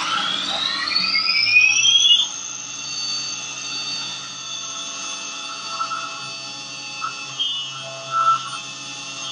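Syil X7 CNC mill spindle spinning up, its whine rising over about two seconds and then holding a steady high pitch as the tool works into the metal block, with a few short louder cutting sounds near the end.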